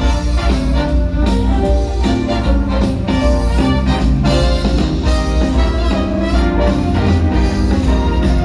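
Show music playing over the park's loudspeakers: an upbeat orchestral Christmas arrangement with brass and a steady beat.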